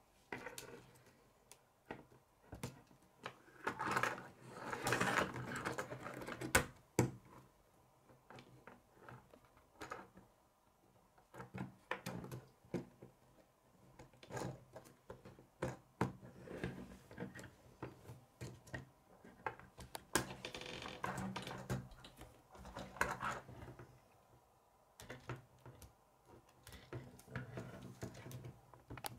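K'nex plastic rods and connectors clicking and rattling as they are handled and snapped together, with sharp clicks scattered irregularly throughout and a few longer stretches of plastic pieces rubbing and rattling against each other.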